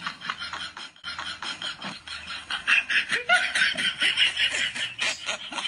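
Small white Spitz-type dog panting rapidly with short whining grumbles, louder about halfway through.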